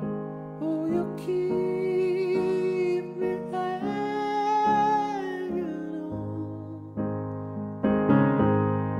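Live piano-and-voice music: piano chords under a wordless male vocal line that climbs to a high held note about four seconds in, with low bass notes joining about six seconds in.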